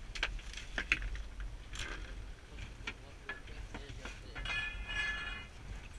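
Fishing reel ticking as a hooked shark is fought on rod and line, with a short buzz from the reel about four and a half seconds in, over a steady low wind rumble.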